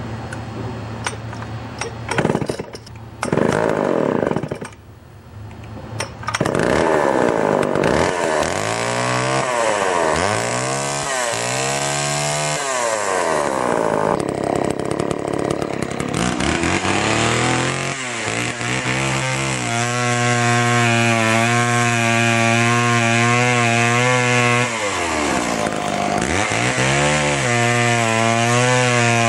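Homelite Super XL 922 two-stroke chainsaw being pull-started, catching about six seconds in after a few sputters. It is revved up and down several times, then held at a steady high speed cutting a log, with a brief drop in speed near the end.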